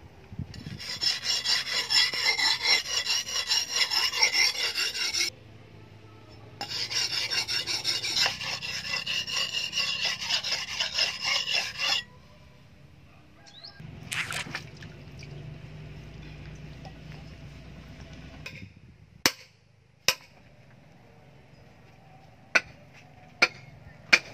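Handmade steel cleaver blade rubbed back and forth on a sharpening stone, rapid scraping strokes at several a second in two runs of about five seconds each with a short break between. Afterwards it is much quieter, with a few sharp clicks near the end.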